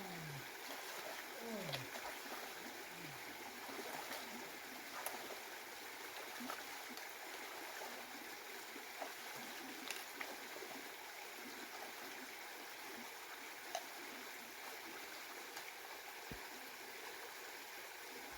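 Shallow creek water running steadily over its bed, with a few faint clicks and splashes. Near the start come some short falling vocal sounds.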